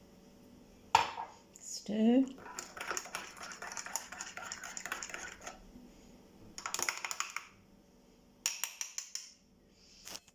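Teaspoon clinking rapidly against the inside of a mug, stirring milk into a cocoa-and-sugar paste, in several spells, the longest about three seconds. A sharp knock comes about a second in.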